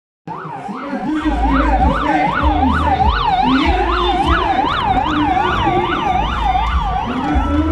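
Emergency-vehicle siren sounding a rapid yelp, rising and falling about three times a second, with a lower wavering tone and a low rumble underneath.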